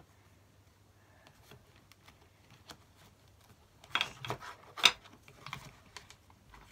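Papers, notebooks and cards being shuffled about in a desk drawer by hand: light rustling and clicks, busier and louder from about four seconds in, with one sharp click just before five seconds.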